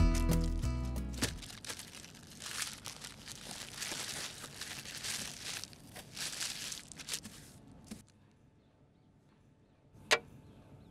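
Background music fading out, then cling film crinkling and rustling as it is unwrapped from a mound of chilled gingerbread dough. A single sharp knock near the end.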